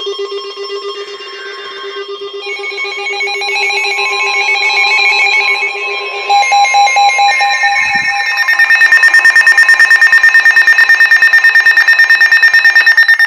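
Electronic emergency-alert tones: several steady tones sounding together and layering up. From about two-thirds of the way through they become a fast, even pulsing of about nine beats a second, the loudest part.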